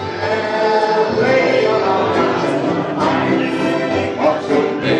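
A group of people singing a song together, many voices at once.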